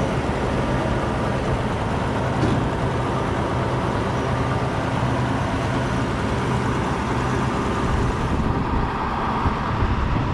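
Crane truck's engine running steadily, driving the crane's hydraulics while a load hangs on the sling, with a light knock about two and a half seconds in.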